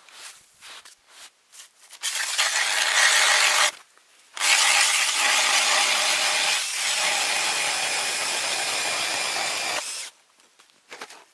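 Makita BDF458 cordless drill spinning a Tonar ice auger as its blades cut into the ice: a short burst about two seconds in, a brief stop, then a steady run of about five seconds that stops near the end. Crunching footsteps in deep snow come before and after the drilling.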